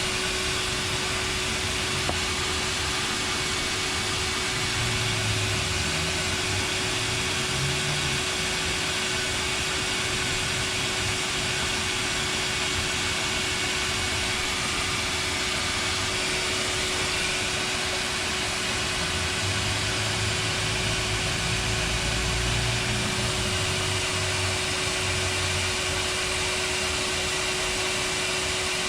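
Shop vac running steadily as a blower, pushing air into the exhaust system to pressurise it for a soapy-water leak test: a constant motor whine over an even rush of air.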